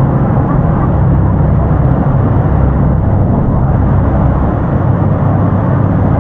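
Steady, loud roar of a tour boat's engine mixed with the rush of the falls, with no break or change.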